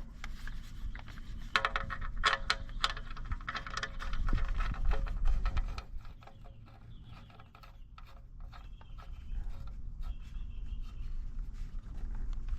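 Engine oil drain plug being threaded back into the oil pan and tightened with a socket: a run of small metallic clicks and scrapes, with a low rumble of handling noise partway through.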